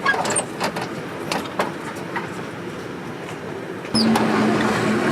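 Street stall ambience: scattered light clicks and clinks over a steady background noise. About four seconds in it jumps abruptly louder, to a steady hum with a low tone.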